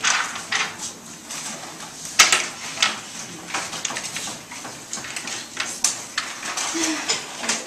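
Scattered sharp clicks and knocks of markers and papers being handled and set down on classroom desks as they are passed out.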